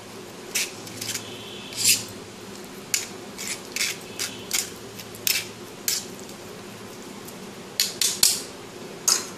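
Steel spoon scraping and pressing wet ground mustard paste against the mesh of a hand-held strainer, squeezing the mustard water through. It comes as a series of short, irregular scrapes and taps, with a pause of a second or two about two thirds of the way in.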